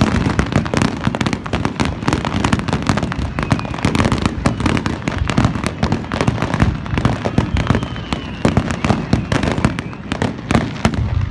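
Fireworks display going off in a rapid, unbroken barrage of bangs and crackles, many per second.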